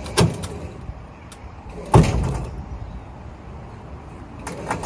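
Metal knocks and clunks from a bent steel tail-light bracket as a cable pulls it straight. There is one knock just after the start, a loud clunk about two seconds in, and a fainter one near the end, over a low vehicle rumble.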